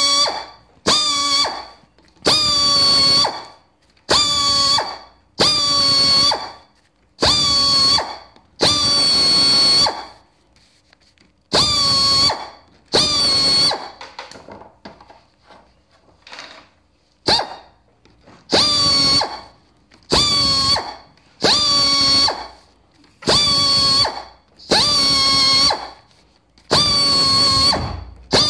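Air-powered die grinder with a small round stone sharpening chainsaw chain cutters one tooth at a time: short whining bursts of about a second each, some eighteen in all, with a pause of a few seconds about halfway through.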